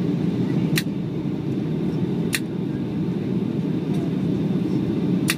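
Steady low rumble of a Boeing 757-200's engines and rushing air, heard from inside the passenger cabin on final approach. Three short sharp clicks come through it: about a second in, about two and a half seconds in, and near the end.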